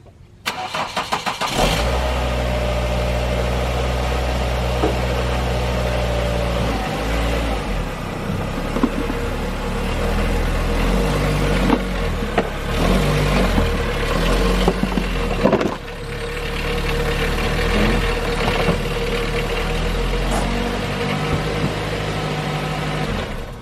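A 2006 Ford Focus's four-cylinder engine cranks for about a second, catches and settles into a steady idle, with its note shifting a few times before it stops near the end.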